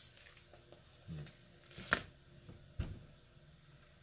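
Bag of Levi Garrett loose leaf chewing tobacco being handled: a few short, quiet crinkles and clicks, the sharpest about two seconds in.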